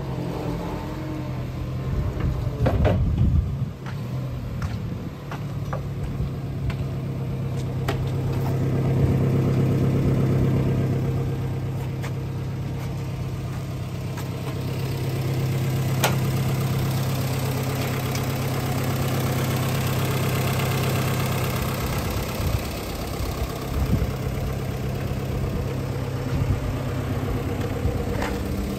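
Linde H16T forklift's LPG-fuelled engine running steadily at idle, with a few knocks about three seconds in.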